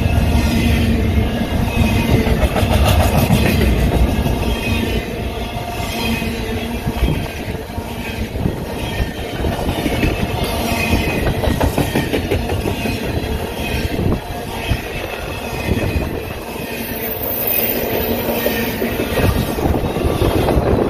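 Union Pacific container freight train rolling past close by, its railcar wheels clacking steadily over the rail joints. Faint wheel squeals come and go.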